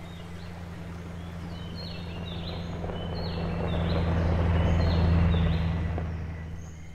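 Pickup truck driving through a shallow river, the splashing water swelling louder and then fading near the end, over a steady low hum. A bird repeats a short falling chirp about once a second.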